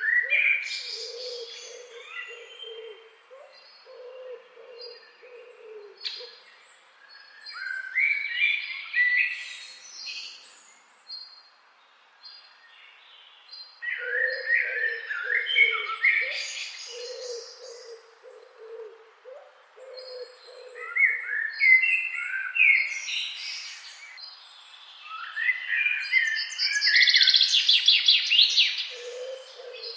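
Several wild songbirds singing: a bout of quick chirping song phrases every six or seven seconds, the loudest and busiest near the end. Behind them a run of short, evenly spaced low notes repeats, with a thin high note repeating between the phrases.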